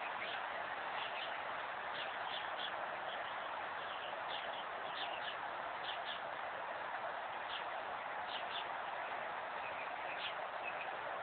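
Small birds chirping in short, scattered calls, a few each second at times, over a steady outdoor hiss.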